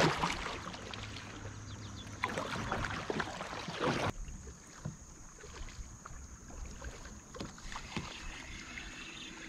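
Kayak paddle strokes on calm river water, with short splashes and knocks in the first four seconds. After that it is quieter, with only faint water sounds and a few small ticks.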